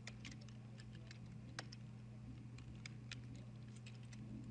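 Computer keyboard keys clicking in short, irregular taps as code is typed, one tap louder about a second and a half in, over a steady low electrical hum.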